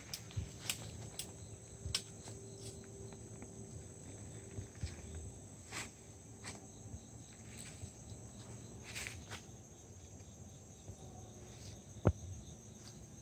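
Steady high-pitched insect chorus, with footsteps crunching through dry leaf litter and twigs throughout, and a sharp click near the end.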